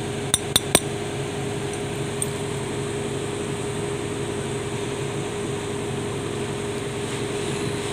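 Steel hand tools clinking against the metal housing of a truck PTO unit being taken apart: three sharp clinks within the first second. A steady background hum runs under them.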